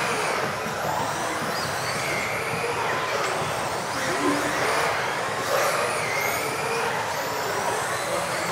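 Several electric RC off-road cars racing round the track, their motors whining up and down in pitch over a steady hiss of tyres and drivetrains.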